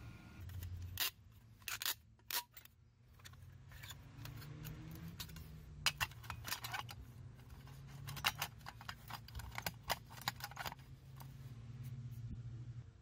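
Metal clicks, clinks and scrapes as the rusty steel panels of a small folding wood stove are handled and set onto its fan base, in several clusters of sharp knocks, with a low steady hum underneath.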